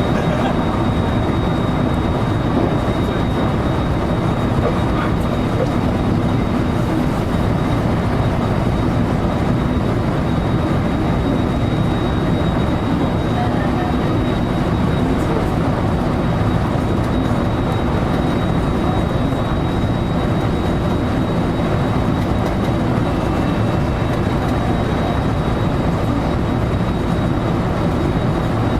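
A JR local electric train running steadily, heard from inside the front car: an even rumble of wheels on rail and running gear, with a faint steady high tone above it.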